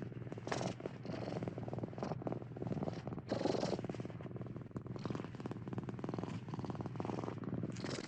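Domestic cat purring steadily: a fast, even rumble.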